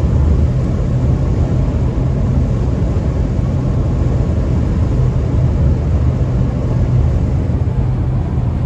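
Road noise inside a car cruising at highway speed: a steady low rumble of tyres and engine with an even hiss above it.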